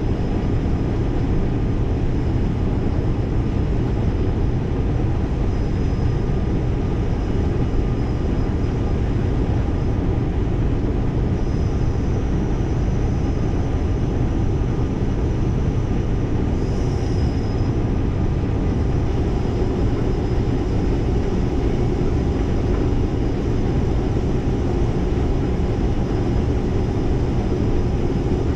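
Case IH 1660 combine harvester running steadily under load while harvesting corn, a constant low machine drone that doesn't change.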